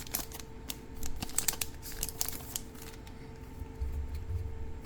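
Japanese One Piece trading cards being handled and flipped through by hand: a quick run of light clicks and snaps for the first two seconds or so, then softer rustling.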